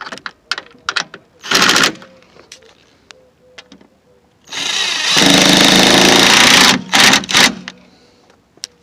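A handheld power tool running in bursts, a short burst about one and a half seconds in and a longer run of about two seconds from about four and a half seconds, with a few quick blips after it and small clicks and knocks of parts being handled in between.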